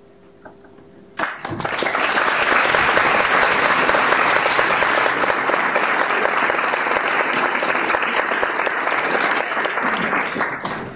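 Audience applauding, breaking out about a second in and dying away just before the end.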